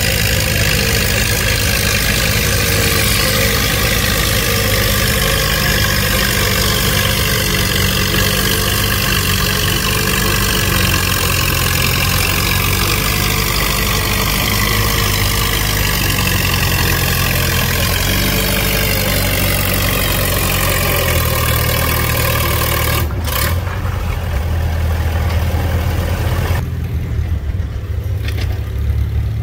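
Antique farm tractor engine working hard under load, its pitch falling slowly over about twenty seconds as it lugs down, typical of a tractor pulling a sled. A sharp crack about 23 seconds in, then the sound turns duller and lower a few seconds later.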